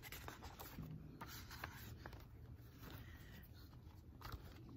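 A hardcover picture book being opened and its pages handled: faint paper rustles and a few soft clicks over a low steady rumble.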